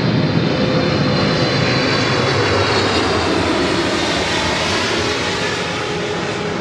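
Jet airliner engines running loud and close. A steady rush of noise carries high whining tones that drift slowly lower and fade about halfway through.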